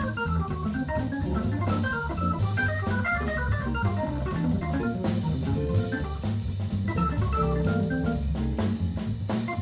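Hammond organ playing a jazz solo: quick runs of short notes over sustained low bass notes, with a drum kit keeping time on cymbals.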